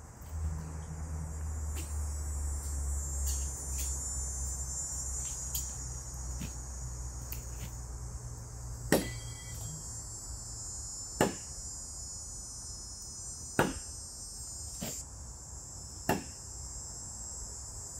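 Thrown knives striking a tree: four sharp knocks about two to two and a half seconds apart, starting about halfway through, over a steady high-pitched insect chorus. A low rumble is heard in the first half.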